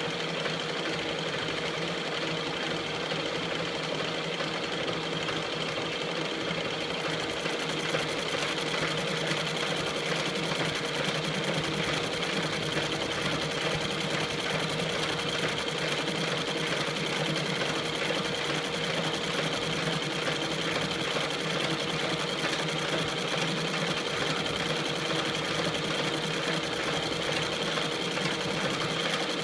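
KART E1N metal lathe running steadily, its gearing giving a constant whine. A brighter hiss joins about seven seconds in and stays.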